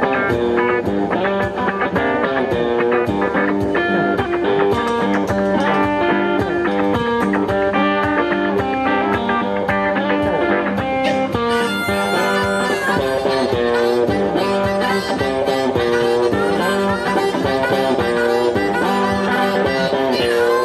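Live electric blues with two electric guitars over a steady drum beat. About halfway through the texture thickens, and near the end a harmonica is played into a vocal microphone.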